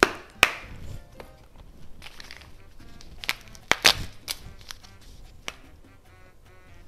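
Kitchen handling sounds during cooking: several sharp clacks and knocks, with some crinkling, the loudest near the start and a cluster about three and a half to four seconds in. Soft background music plays underneath.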